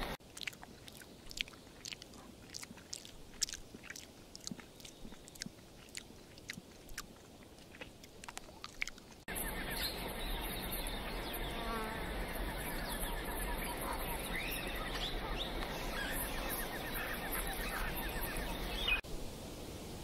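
Natural ambience with scattered sharp clicks and ticks for the first nine seconds, then a cut to louder forest ambience: a steady high insect drone with birds chirping and trilling. About a second before the end it changes to a steady rush of water splashing over rocks.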